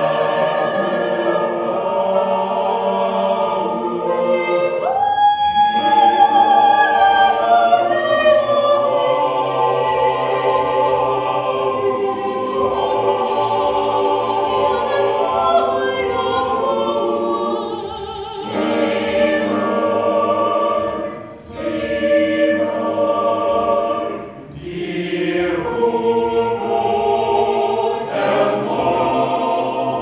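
A small vocal ensemble rehearsing a new choral piece, singing sustained, overlapping lines in close harmony. The sound dips briefly twice in the last third as the voices break off and re-enter.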